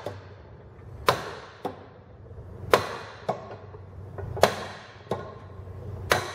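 Dead blow hammer striking the end of a Wacker WM80 rammer engine's crankshaft, which has its nut threaded on flush to protect the threads. Four solid blows come about every second and a half, each with a short ringing tail and a fainter knock about half a second later. The blows are driving the crankshaft to separate the crankcase halves.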